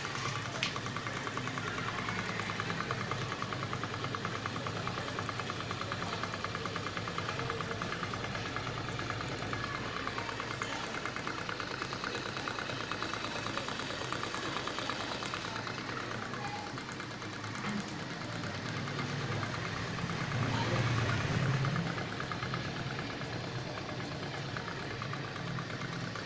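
Small charcoal-fired hot-air (Stirling-type) model engine running, its crank and flywheels turning with a fast, even mechanical ticking. A louder low rumble rises briefly about three-quarters of the way through.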